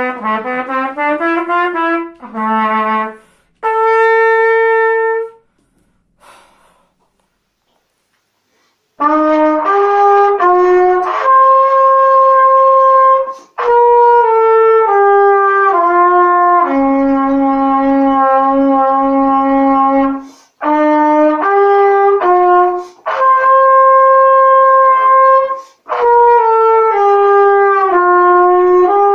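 Solo trumpet playing a melody one note at a time. The piece ends on a held note about five seconds in, a few seconds of silence follow, and about nine seconds in another trumpet starts a new melody of long sustained notes.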